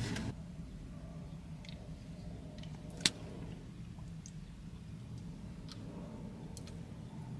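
Quiet inside a parked car with a low steady hum; a louder noise stops just after the start. One sharp click comes about three seconds in, with a few faint ticks around it.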